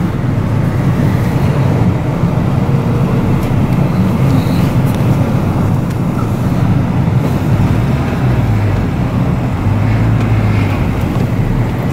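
Car driving, with steady road and engine noise heard from inside the cabin.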